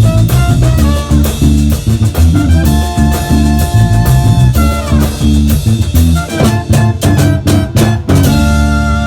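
Vallenato music: a diatonic button accordion playing a run over a rhythmic bass line and percussion, ending on a held chord about a second before the end.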